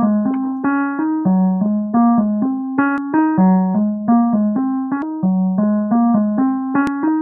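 Keyboard music with a piano sound: a short rising bass line repeats over and over under chords.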